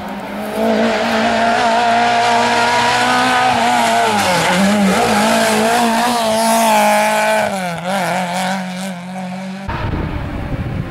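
Fiat 131 Abarth rally car's four-cylinder engine at high revs through a bend, its pitch dipping and climbing again twice as the revs fall and rise. About ten seconds in it cuts off abruptly and a rougher noise takes over.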